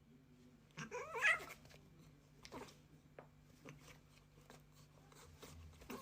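A cat's short wavering cry about a second in, followed by a few faint clicks and taps.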